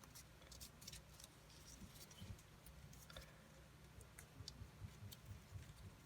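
Faint paper handling: a sheet of origami paper being folded and creased, with scattered soft crinkles and ticks over quiet room tone.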